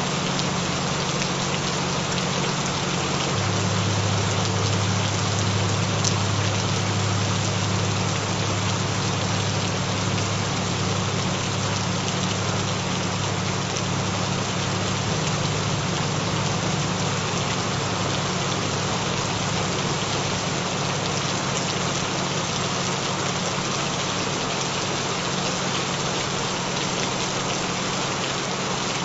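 Gentle steady rain falling, an even patter, with low steady drone tones underneath it that shift in pitch about three seconds in: a rain recording layered with binaural-beat tones.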